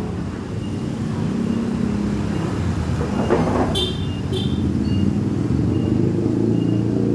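Street traffic: the steady low rumble of passing motor vehicles. About four seconds in there are two short high tones.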